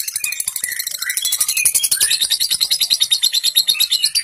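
Lovebird 'ngekek': a long, fast rattling chatter of high, evenly repeated notes, with some wavering squeaks mixed in during the first couple of seconds.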